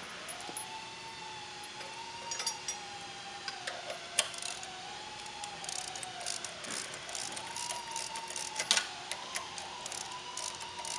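A socket ratchet clicking in quick runs as a shipping caging bolt is run in on a Solo self-adjusting clutch, with a few metal tool knocks. Underneath, a faint wailing tone rises and falls slowly.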